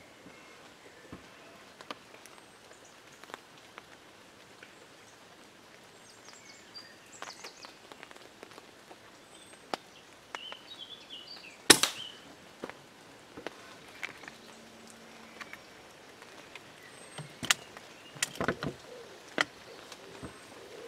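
A single sharp report from a silenced .177 Daystate Mk IV pre-charged air rifle about twelve seconds in. It stands out against a background of small scattered ticks and faint bird chirps. A short run of softer knocks follows several seconds later.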